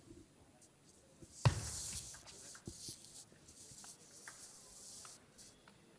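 Table tennis rally with light ball clicks, ending in one sharp hit about a second and a half in, followed by a few seconds of spectators clapping, which dies away near the end.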